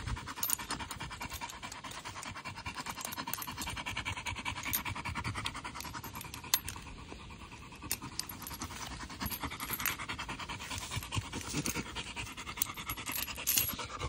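Pit bull panting steadily after a tire-pulling training session, with a few light clicks.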